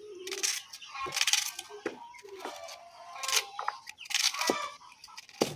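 Onions being prepared by hand: several short, irregular crackling and crunching sounds.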